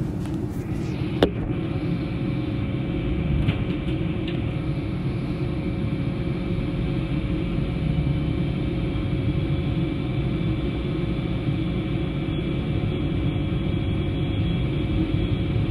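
Iarnród Éireann 201 class diesel locomotive running, its EMD 12-710 two-stroke V12 engine giving a steady low drone with a thin steady whine above it. A single sharp click about a second in.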